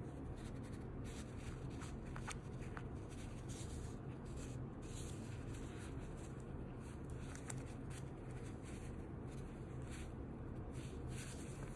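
Faint, irregular rustling and scratching of yarn and a crochet hook as single crochet stitches are worked, over a steady low hum.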